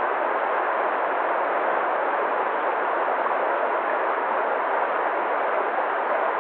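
Waterfall: a steady, even rush of falling water, with no change in level.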